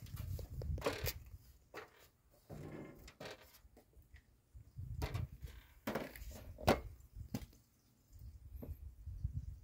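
Scattered light clicks and knocks of screws and small parts being handled at the top of an aluminium stepladder, with stretches of low rumble between them.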